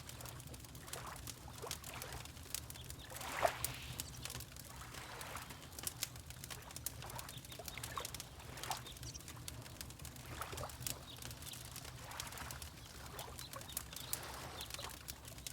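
Layered room ambience: a wood fire crackling in a fireplace with frequent small pops, over soft water lapping and a steady low rumble. There is one louder swell of water about three and a half seconds in.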